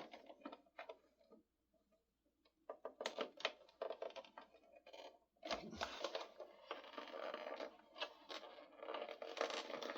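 Handling noises from fiddling with an air compressor's fuse holder: scattered clicks and taps, a short pause, then steadier scraping and scratching of plastic parts with more clicks. No motor is heard; the compressor is not running.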